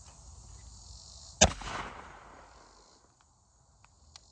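A single shot from a black-powder muzzleloading shotgun about a second and a half in: one sharp crack followed by a rumbling tail that fades over about a second. Crickets chirr steadily throughout.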